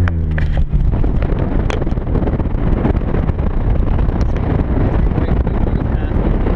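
A handheld air horn blast cuts off within the first second, its pitch sagging as it ends. Then steady wind noise buffets the microphone as the car drives on.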